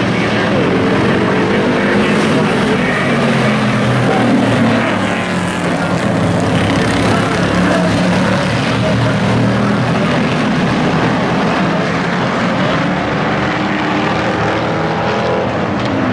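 Engines of several hobby-class race pickup trucks running hard around an oval track. The sound is a loud, continuous engine drone whose pitch rises and falls as the trucks pass.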